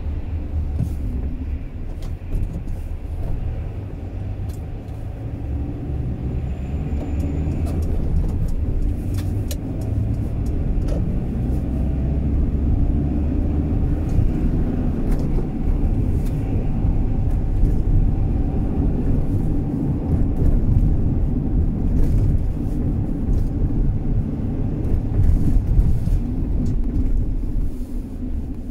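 Car driving on a road: a steady low rumble of engine and tyre noise that grows a little louder over the first half, with the engine's pitch rising and falling gently.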